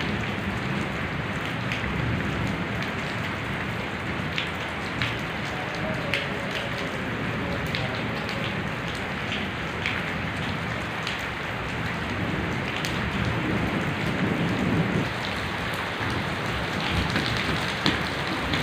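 Heavy rain falling steadily on a brick-paved courtyard, an even hiss with scattered sharp ticks of single drops.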